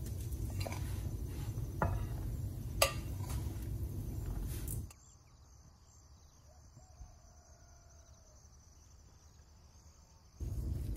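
A metal spoon clinking against a glass mixing bowl as flour is added, a few sharp clinks over a low steady rumble. About five seconds in the sound drops to a faint hush, and the rumble comes back suddenly near the end.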